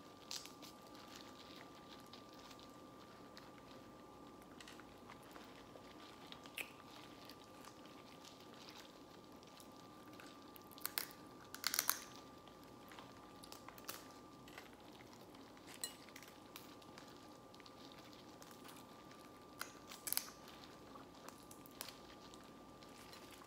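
Quiet eating sounds from a seafood boil: scattered cracks and clicks of seafood shells being broken and peeled, with chewing, and a small cluster of louder cracks about halfway through. A faint steady hum runs underneath.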